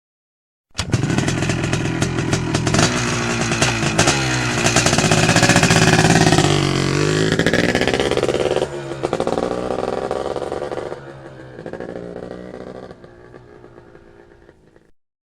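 Motorcycle engine revving, its pitch rising and falling, played as a meme sound effect. It starts suddenly, eases off about two-thirds of the way through and fades away.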